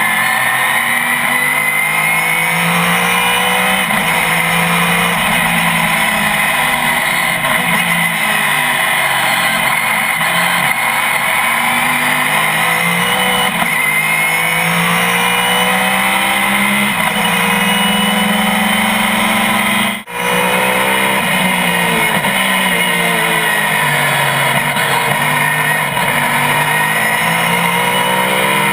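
SCCA GT-1 race car engine under hard acceleration. Its pitch climbs through each gear and drops back at each shift, again and again, with a brief cut in the sound about two-thirds of the way through.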